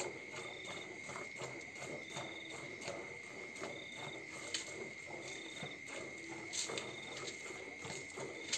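Milk squirting by hand from a Jersey cow's teats into a plastic bucket, in quick regular spurts about two or three times a second. Crickets chirp steadily behind, with short trills repeating about once a second.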